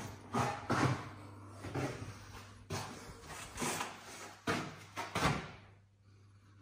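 Irregular knocks and thuds, about eight in six seconds, over a steady low hum.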